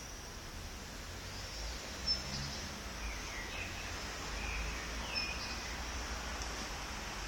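Background noise with a steady low rumble, broken by a few short, faint, high chirps, some of them falling in pitch, like small birds calling.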